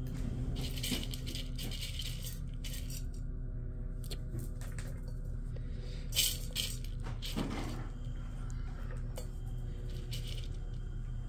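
Scattered light clicks and rattles of dry kibble pieces on a hard floor, coming in short bursts a few times, over a steady low hum.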